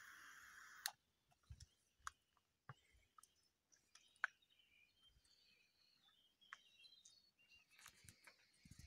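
Near silence: faint outdoor ambience with a few soft scattered clicks and faint distant bird chirps.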